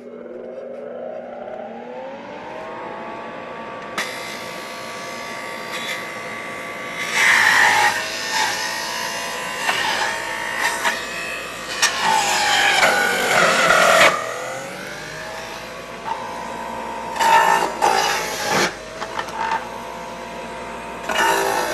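Omega centrifugal juicer's electric motor spinning up to a steady whine, then grinding produce in bursts as pieces are pushed down the feed chute. Its pitch sags under the heaviest load and climbs back.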